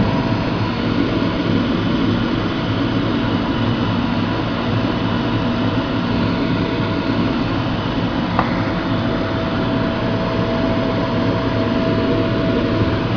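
Angelon shrimp color sorting machine running, its vibratory feeder on: a loud, steady mechanical hum and rush, with one sharp click about eight seconds in.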